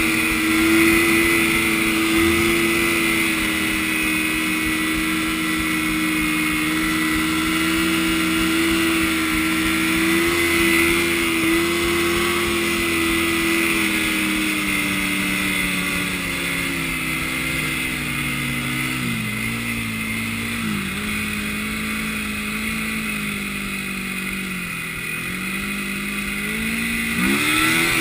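Yamaha snowmobile engine running at speed, heard up close from the handlebars. Its pitch holds steady, then sags slowly through the second half with a couple of brief dips, and climbs sharply near the end as the throttle opens.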